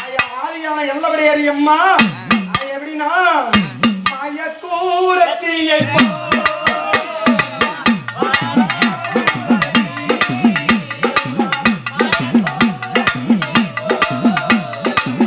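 Drum-led festival music: a wavering melodic line over sharp drum strokes, giving way about six seconds in to rapid, evenly repeated drumming with short falling pitch sweeps.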